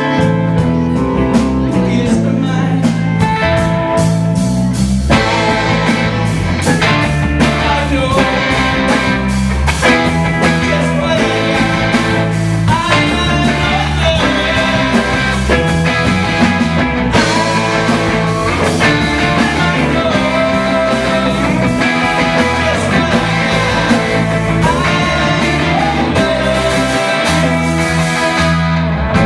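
Live band playing: electric guitars over bass and a drum kit, with a lap steel guitar; several notes slide up in pitch.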